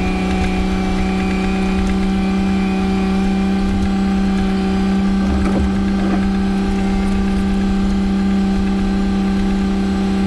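Tractor engine running at a steady speed, a constant drone with no change in pitch, as the tractor pulls a grain cart slowly across a field.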